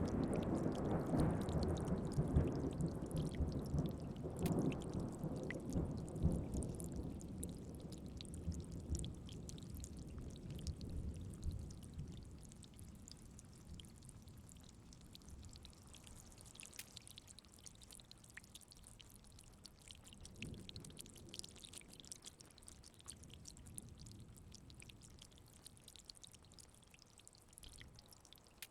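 A thunder rumble dies away over the first ten seconds or so, leaving steady rain with drops pattering and dripping. A faint low rumble swells briefly about twenty seconds in.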